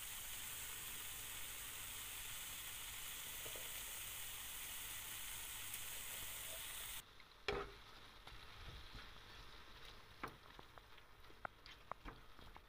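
Vegetable stuffing of grated carrot, peppers, onion and chopped mushrooms sizzling steadily in a non-stick frying pan. About seven seconds in, the sizzle cuts off abruptly, leaving a quieter hiss with scattered clicks and scrapes as a wooden spoon stirs the mixture.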